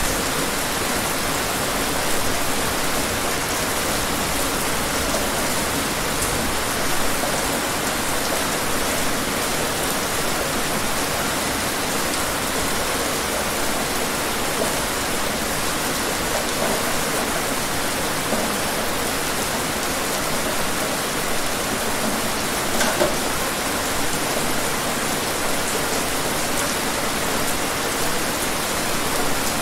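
Steady rain falling, an even hiss with a few louder drops now and then.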